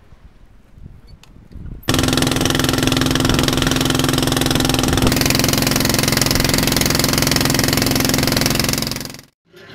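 Longtail boat's engine running under way, a loud steady drone that cuts in abruptly about two seconds in and stops sharply near the end.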